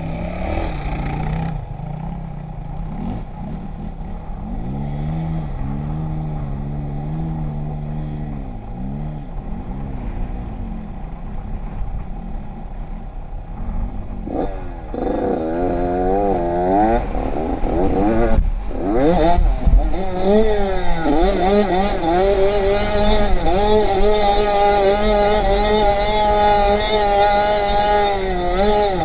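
Dirt bike engine being ridden off-road, its revs rising and falling over and over as it is throttled on and off. It gets louder and higher-pitched from about halfway through.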